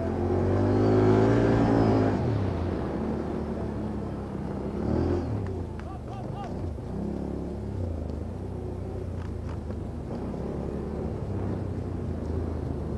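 ATV (quad bike) engine revving, rising and loudest over the first two seconds, then running on at lower, varying revs with the throttle worked on and off.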